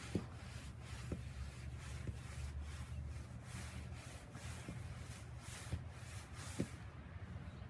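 Repeated swishing and rubbing of a nylon snowsuit against thin snow as a child sweeps arms and legs to make a snow angel, over a low rumble, with a few light knocks.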